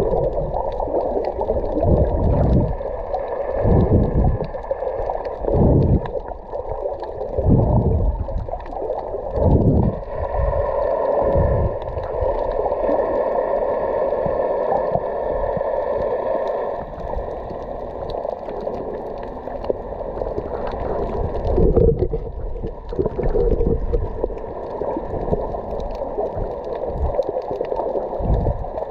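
Muffled underwater water noise, as heard by a camera held below the surface: water surging and sloshing in swells every second or two, settling into a steadier rush for a few seconds in the middle.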